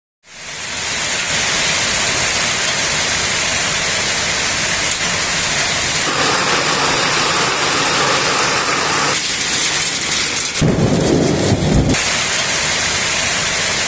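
Torrential rain and hail pounding down in a violent wind-driven storm, a loud, dense hiss. From about ten and a half seconds in, a deep rumble of wind or thunder swells for a little over a second.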